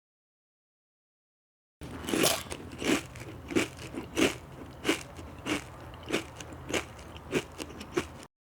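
Crunching sound effect: about ten crisp crunches at an even pace, a little under two a second, starting about two seconds in.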